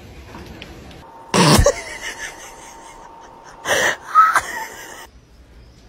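A dog sniffing hard at a person's foot: three loud, breathy sniffs, one about a second and a half in and two close together near four seconds.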